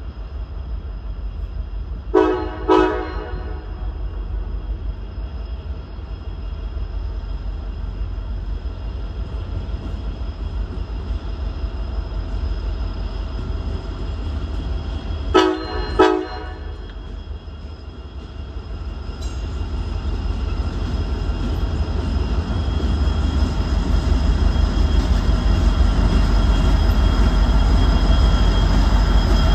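Train horn sounding two short blasts, then two short blasts again about 13 seconds later, over the steady low rumble of a train. In North American railroading, two short blasts is the signal that the train is about to move forward. The rumble grows louder over the last ten seconds as the train comes closer.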